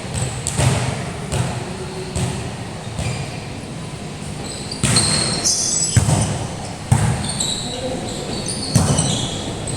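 Basketball bouncing on a court floor in an irregular series of sharp knocks, with players' voices in a large echoing hall.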